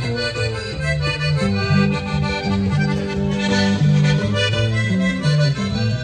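Norteño instrumental break between sung verses: a button accordion plays the melody over strummed acoustic guitar, with low bass notes stepping along underneath.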